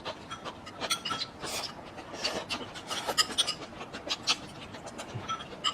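Close-up eating sounds: irregular wet chewing and mouth smacks over a mouthful of food, with sharp clicks of utensils against bowls.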